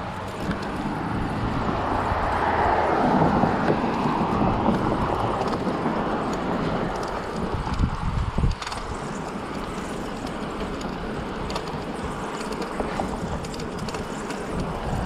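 Street noise from a moving bicycle, with steady tyre and wind noise. A car passes, rising to a peak about three seconds in and fading away. A couple of sharp knocks come a little after eight seconds in.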